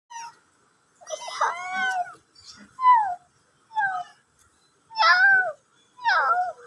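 A cat meowing over and over: about seven high calls, each sliding down in pitch, the one about a second in longer than the rest.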